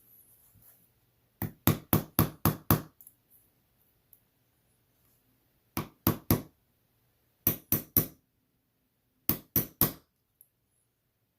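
Small hammer tapping on a pin punch to drive the pins out of a stainless steel watch bracelet and remove a link. The taps come in four quick runs of three to five.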